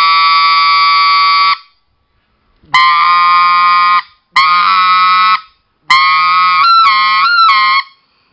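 RedBone specklebelly goose call blown through cupped hands: four held notes. The first lasts about a second and a half, the next two about a second each, and the last, longer note near the end flips up in pitch several times.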